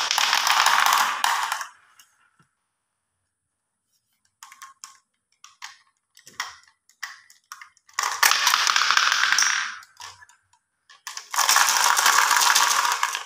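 Marbles rolling and clattering down a wooden marble-run slope into a hollow plastic crocodile toy. Then come scattered single clicks of marbles knocking against the plastic, and two long stretches of marbles rattling inside the toy as it is tipped and shaken.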